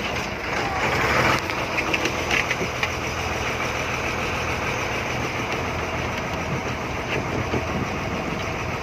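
Fishing boat's inboard engine running steadily with a low hum, under a constant rush of wind and water. A louder rush of noise comes about a second in.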